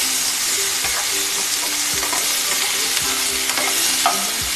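Chopped onions frying in hot oil in a metal kadhai: a steady sizzle. A metal spatula scrapes and taps against the pan as they are stirred, most sharply about four seconds in.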